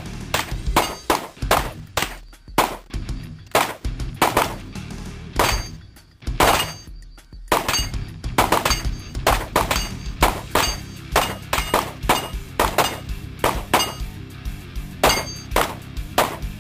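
Rapid, irregular gunfire from several shooters firing handguns and a carbine at once, the shots overlapping at about two to three a second.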